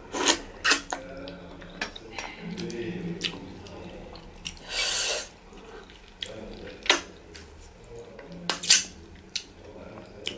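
Wet, close-up eating sounds of fufu and light soup eaten by hand: sharp lip smacks and finger sucking, several near the start and a cluster in the second half, with one longer slurp about halfway.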